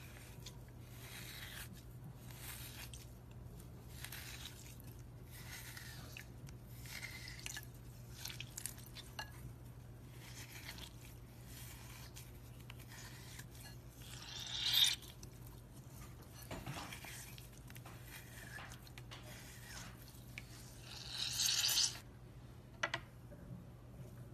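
Glitter-coated dry floral foam being squeezed and crushed by hand, crunching and crumbling in repeated short crackles. Two louder, longer crunches come about 15 and 21 seconds in, over a faint steady low hum.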